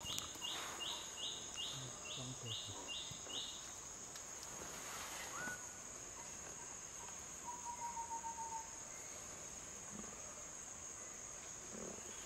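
Steady high drone of forest insects, like crickets or cicadas. Over it come a run of about nine short, evenly spaced high chirps in the first three and a half seconds, and a brief rapid trill a little past the middle.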